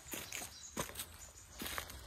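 Footsteps on dry leaf litter and loose stones: a few short, faint crunching steps, about a second apart.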